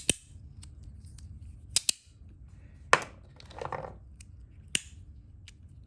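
Magnetic fidget slider snapping shut: a handful of sharp clicks spread over several seconds, some coming in quick pairs.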